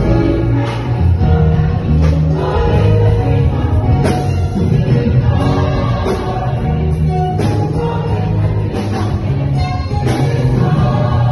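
Gospel choir singing live over an instrumental backing with a strong bass, amplified through a sound system.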